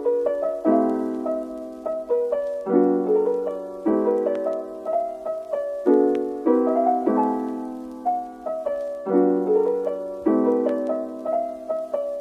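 Background music: a piano playing a gentle piece of chords and single notes, each struck and left to ring away, a new chord about every second.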